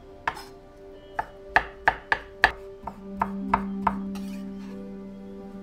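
Kitchen knife chopping a pickled cucumber on a wooden cutting board: about ten sharp knocks, irregular, through the first four seconds, then the chopping stops. Soft background music runs underneath.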